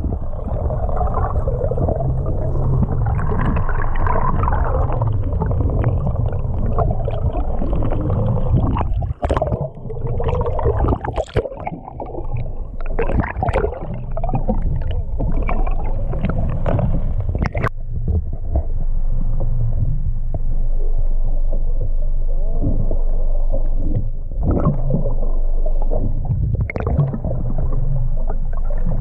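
Muffled gurgling and sloshing water with scattered knocks and clicks.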